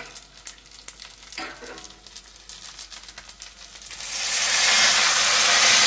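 Quiet crackling of spaghetti frying in a hot pan, then about four seconds in a ladle of tomato broth hits the pan and sets off a loud, steady sizzle.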